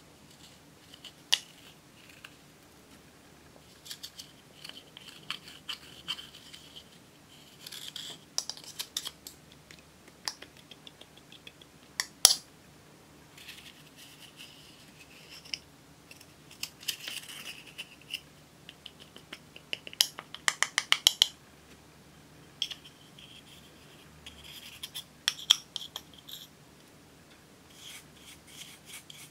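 A small metal spatula scraping and chipping pressed eyeshadow out of its compact: short scratchy strokes broken by sharp clicks of metal on the pan. About two-thirds of the way in comes a quick run of taps.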